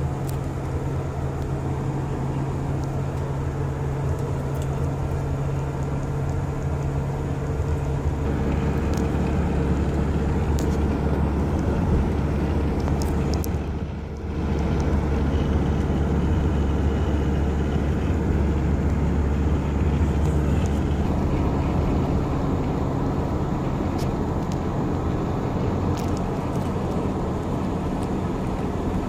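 Car driving, heard from inside the cabin: a steady low drone of engine and tyre noise, with a brief dip about halfway through.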